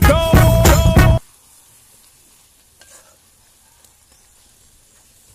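Music with a heavy beat cuts off about a second in. After that, faint sizzling of string beans simmering in coconut milk in a wok, with a spatula stirring and now and then tapping the pan.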